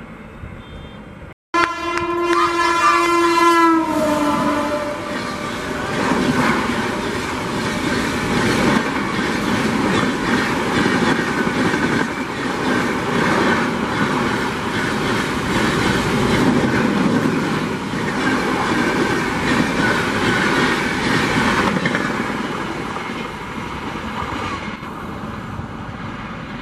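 An Indian Railways electric locomotive's horn sounds for about two seconds as it passes at speed, its pitch dropping as it goes by. The coaches of the express train then pass, a steady rush of wheels with clickety-clack over the rail joints, fading near the end.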